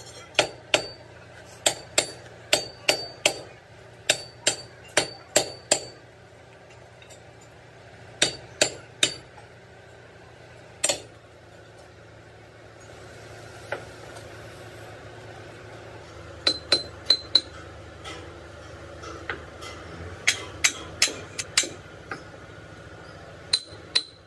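Hammer blows on steel in short runs of a few strikes, each with a brief metallic ring, separated by pauses of a few seconds.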